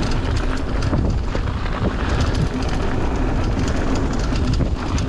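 Ragley Big Al hardtail mountain bike ridden fast over a dirt trail: steady tyre rumble and wind buffeting the camera microphone, with frequent clicks and rattles from the bike over the bumps.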